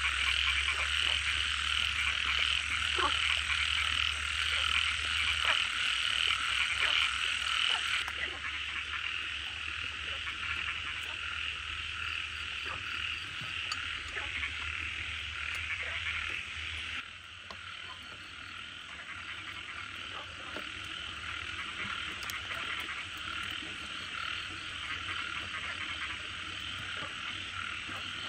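A dense chorus of frogs croaking at night, many calls overlapping into a steady din, a little quieter in the second half.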